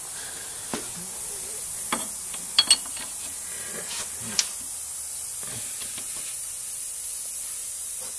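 Brake bracket parts being handled: a few short clicks and knocks, the loudest pair about two and a half seconds in, over a steady hiss.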